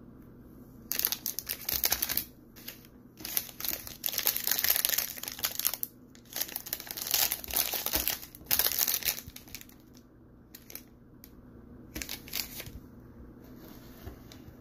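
A crinkly plastic candy wrapper on a Russell Stover S'mores bar crackles and rustles in repeated bursts for about nine seconds as it is opened by hand. A few shorter rustles follow near the end.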